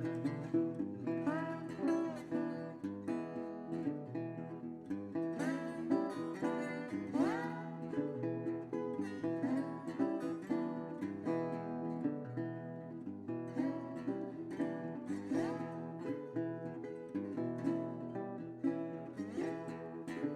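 Background music led by plucked guitar, with a steady pulse and some notes sliding upward.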